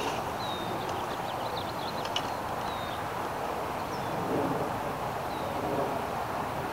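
Steady outdoor background noise with birds chirping: short, thin, falling calls every second or two. A light click about two seconds in.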